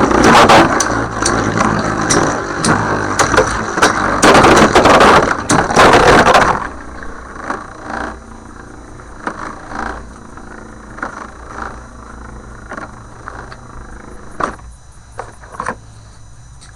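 Lightning L-Drago and Burn Phoenix Beyblade tops spinning and clashing: loud rapid clattering with hard hits for about the first six seconds, then a much quieter spinning whir broken by scattered clicks of contact.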